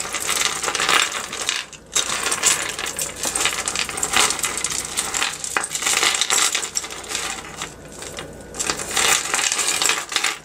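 Costume jewelry clinking and jingling as hands untangle a beaded bauble necklace from a metal chain necklace caught in it: many small metallic rattles and clicks, with a brief lull about two seconds in.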